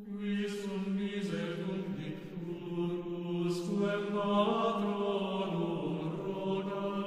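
Soundtrack music of low, droning chant-like voices holding long notes that shift slowly in pitch, starting abruptly, with a few brief hissing accents.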